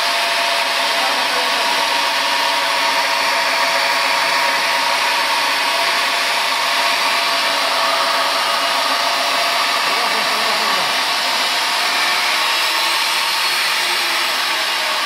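Electric diamond core drill on a rig stand running steadily, its motor giving a constant high whine as it cuts a core through reinforced concrete.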